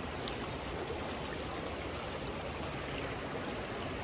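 Water rushing steadily over the rocks of a creek's small rapids.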